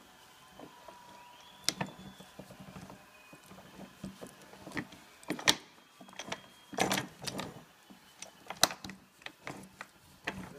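Jensen FF drivetrain clicking while the car reverses: sharp, irregularly spaced clicks and knocks that cluster about halfway through, over a faint low hum. On some FFs this ratcheting is common and harmless, and it normally stops after a few miles of driving.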